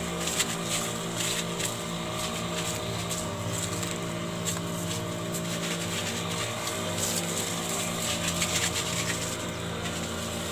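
Powered knapsack sprayer's pump running steadily while spraying herbicide onto weeds, with the hiss of the spray and brief crackles over a constant hum.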